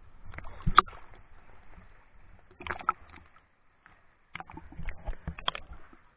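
River water splashing and sloshing against a camera held at and below the surface, in three bursts with sharp slaps.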